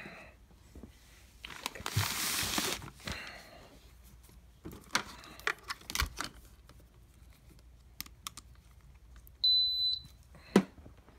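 Kalorik AF-250AD2 air fryer giving a single short, high electronic beep as it is plugged in and its control board powers up, the sign that the replaced thermal fuse has restored power. Before it, rustling and a few clicks of the cord and plug being handled; a sharp click just after the beep.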